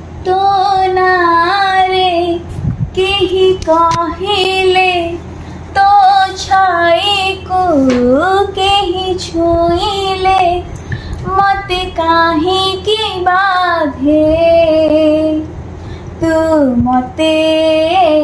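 A woman singing a song solo without accompaniment, in a high voice with melodic phrases, held notes and short breaths between lines.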